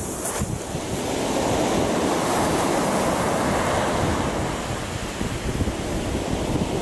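Small sea waves breaking and washing up over a coarse sand beach, the surf swelling about a second in and easing off around five seconds. Wind rumbles on the microphone underneath.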